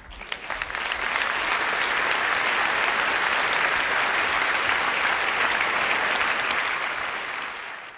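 Large audience applauding, building over the first second, holding steady, then fading and cutting off at the end.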